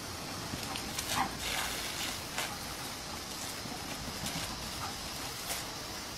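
Steady hiss of a garden hose spraying water onto grass, with several short, sharp sounds from a dog biting and snapping at the stream.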